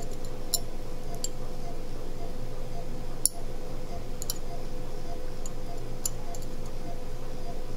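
A steady hum with a faint pulse about twice a second, and a handful of light, sharp clicks of a steel dental explorer tapping and probing in the dog's upper first molar; the sharpest click comes a little past the middle.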